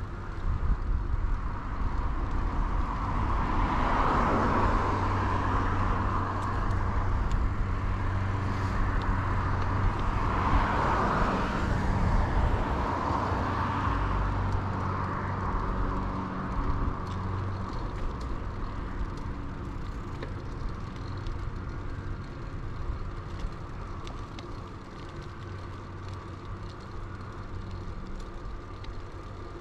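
Riding noise from an early-1990s Bianchi Alante mountain bike, with low wind rumble on the chest-mounted camera's microphone. Motor vehicles pass, the loudest swelling past about four seconds in and again around eleven seconds in, and the sound grows quieter after that.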